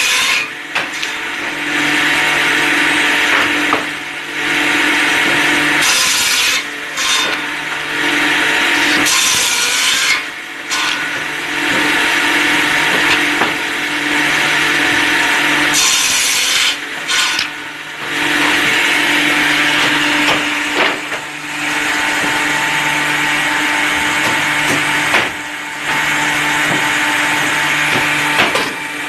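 An electric woodworking power tool working wood in long passes: a steady motor hum under a loud rasping cutting noise. It breaks off briefly about six times.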